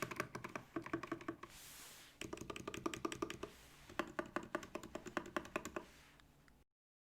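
Fast typing on a mechanical keyboard with lubed Alpaca linear switches and Cherry-profile PBT keycaps, in quick runs of clacky keystrokes. There is a pause about a second and a half in and a short one about three and a half seconds in. The typing cuts off suddenly near the end.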